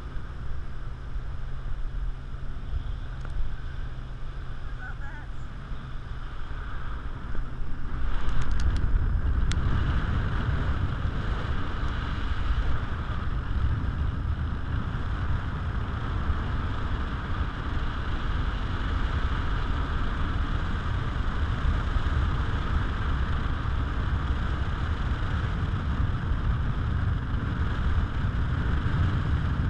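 Wind buffeting an action camera's microphone while hanging from a parasail high above the sea: a low, uneven rumble with a hiss over it, which grows stronger about eight seconds in. Before that a faint steady low hum sits under the wind.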